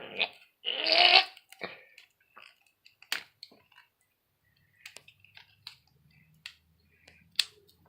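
Scattered clicks and taps of hands working at a toy's packaging, with a short, louder noisy sound about a second in.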